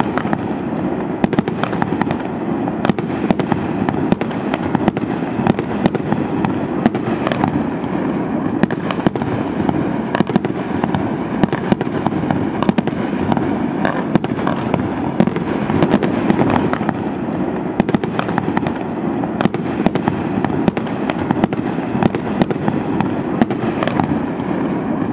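Fireworks display: a steady barrage of shells bursting, many sharp bangs in quick succession over a continuous noise.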